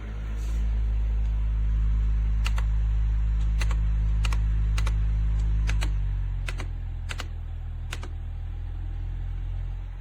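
Electric tower fan running with a steady low motor hum that drops to a lower level about six seconds in, as if switched to a lower speed. Sharp clicks sound at uneven intervals over it, about nine in all.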